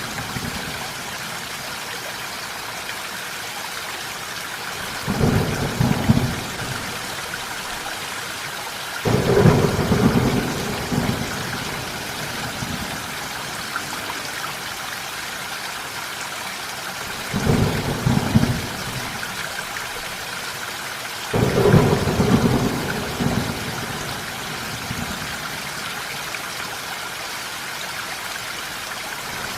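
Steady rainfall with four rolls of thunder: a low rumble about five seconds in, a longer one about nine seconds in, another about seventeen seconds in and a fourth a little after twenty-one seconds.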